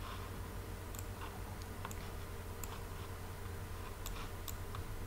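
A handful of sparse, faint computer mouse clicks over a steady low hum.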